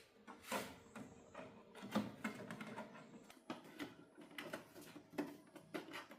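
Irregular clicks and taps of hands handling small tools and parts on a workbench, with a few sharper knocks about half a second in, around two seconds in and near the middle.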